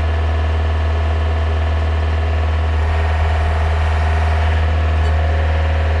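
Gehl R190 skid steer's diesel engine running steadily, heard from inside the cab, as the boom is worked at full hydraulic speed.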